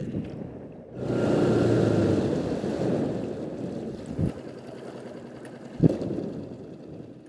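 Small boat's outboard motor running under way: it opens up sharply about a second in and then eases off as the boat slows, with wind on the microphone. Two short knocks, the louder one about six seconds in.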